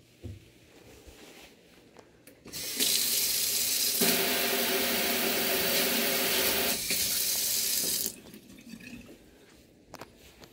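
Pull-down kitchen faucet spraying into a stainless steel sink for about five seconds, then shut off. A steady hum runs under the spray for part of that time.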